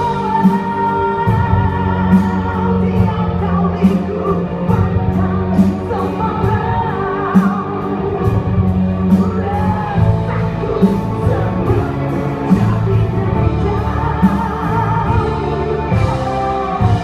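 A song played by band and orchestra, with a singer's voice wavering over a steady bass line and a regular beat of sharp percussion hits.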